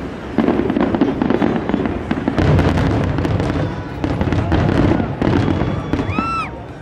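Fireworks going off: a dense run of sharp crackles and pops over a continuous rushing hiss, with a short whistle that rises and falls about six seconds in.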